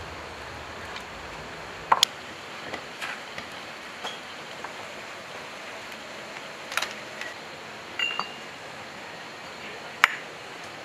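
Scattered sharp metal clinks and taps of a wrench and steel gears being handled on a diesel engine's gear case, about half a dozen in all, the loudest near the end, one ringing briefly.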